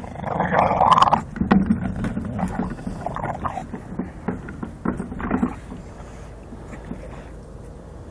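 Bulldog growling and snorting in several rough bursts, the loudest about a second in, as it goes at a garbage can's wheels; it quiets after about five and a half seconds.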